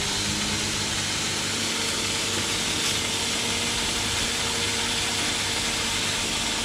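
Jeweller's flexible-shaft rotary tool running at a steady speed while its handpiece polishes a ring: an even motor hum with a high hiss.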